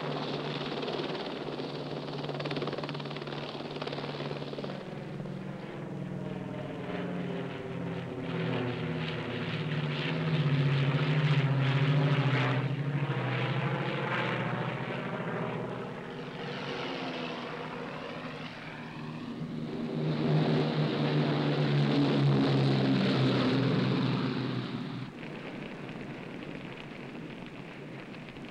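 Propeller aircraft flying low overhead, the engine sound swelling to a peak about ten seconds in and again about twenty seconds in, with a sweeping change in tone as it passes. The second pass cuts off sharply a few seconds before the end.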